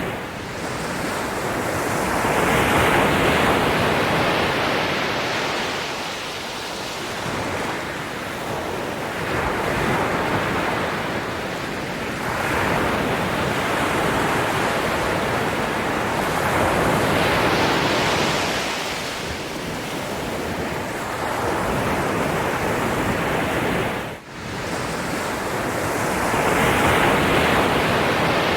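Ocean waves breaking and washing on the shore, the surf swelling and falling back every few seconds, with a momentary drop-out about three-quarters of the way through.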